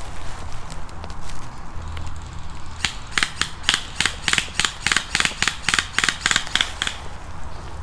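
An airsoft gun firing a rapid string of single shots, about four a second. The run of sharp snaps starts about three seconds in and lasts some four seconds.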